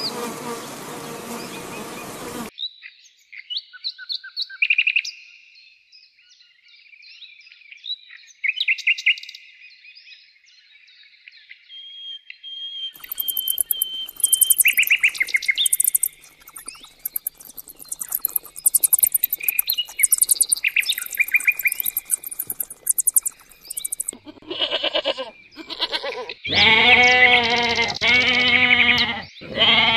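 A run of animal sounds: honeybees buzzing for the first couple of seconds, then birds chirping and twittering, with rapid very high chirping from about thirteen seconds in. Near the end a goat bleats loudly, twice.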